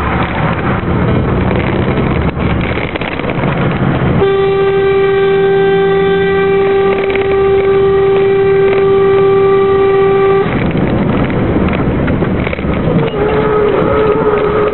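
Truck engine and road noise heard from inside the cab, with a truck horn sounding one steady note for about six seconds from about four seconds in. A fainter steady tone starts near the end.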